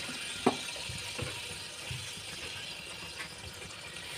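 Steady sizzling hiss from a hot pot of fried onions with raw chicken just added, with a couple of faint clicks about half a second and a second in.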